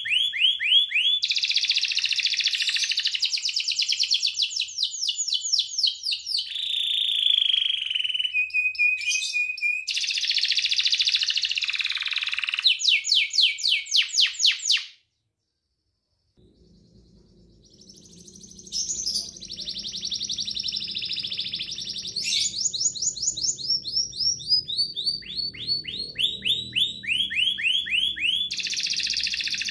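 Young canary singing: fast trills of rapidly repeated notes, rolling phrases and a briefly held whistle. The song drops out completely for about a second and a half midway, then resumes.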